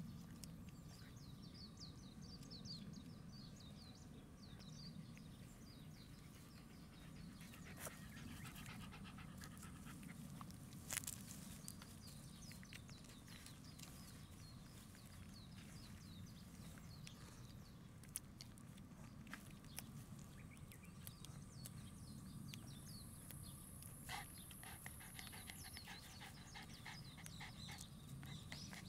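Faint sounds of Shiba Inu puppies suckling at their nursing mother: soft, quick little clicks and smacks from their mouths, very quiet.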